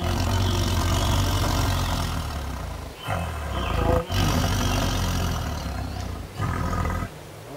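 Tiger roaring in long, low bouts, broken by brief pauses about three, four and six seconds in.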